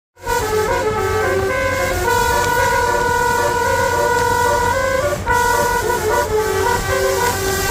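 Basuri telolet bus horn playing a tune in stepped notes, starting abruptly, with one long held note in the middle and a brief break about five seconds in.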